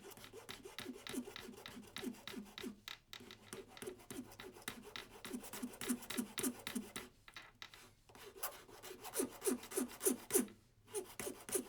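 Rapid, repeated rasping strokes of a hand tool scraping hard plastic, enlarging the hole in a plastic control button, with a few short pauses between runs of strokes.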